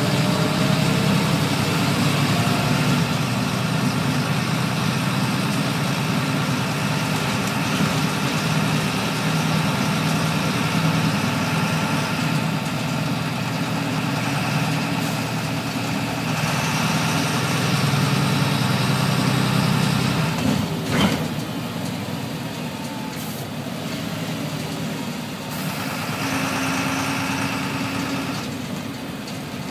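Inside a city bus: the engine and running gear give a steady low drone with road noise over it. A single sharp knock comes about two-thirds of the way through, and the drone is a little quieter after it.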